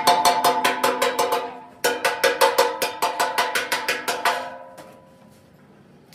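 A hammer rapidly striking a welded sheet-steel air compressor tank, about seven blows a second in two runs, typical of chipping slag off fresh welds. The hollow tank rings like a bell under each blow, and the ringing fades out after the last strike.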